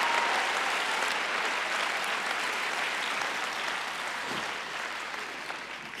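Large audience applauding, the clapping dying away gradually.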